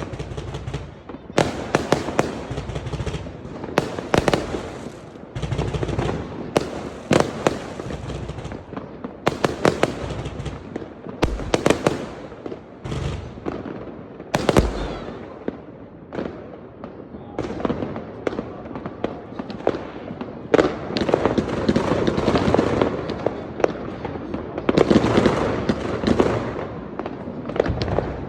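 Fireworks going off at night: repeated sharp bangs from shells bursting, at irregular intervals and sometimes in quick clusters, over continuous crackling that grows denser in the second half.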